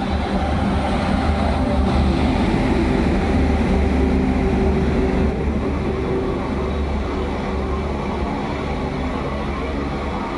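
Indian Railways automobile carrier wagons rolling along the track, a steady rumble with several sustained droning tones over it, making an unusual sound.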